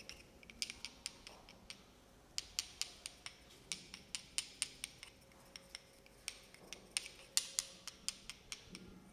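Quick, light clicking: sharp high clicks, several a second, in uneven runs with a brief lull about two seconds in.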